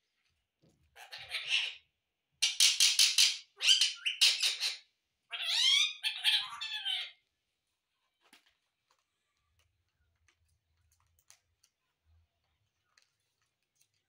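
Rose-ringed parakeet calling: four loud bursts of harsh squawks and chatter over about six seconds, the last with gliding rises and falls in pitch, then faint ticks.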